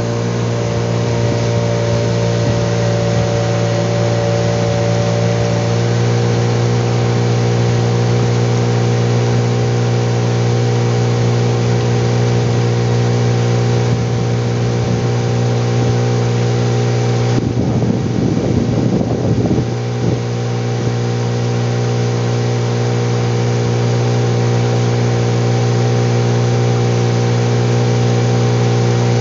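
A small boat's outboard motor running steadily at cruising speed, a constant drone. About two-thirds of the way through, a couple of seconds of rough noise sit over it.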